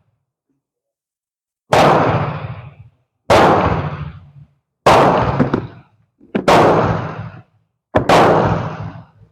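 Five gunshots about a second and a half apart, each a sharp crack with a tail that dies away over about a second.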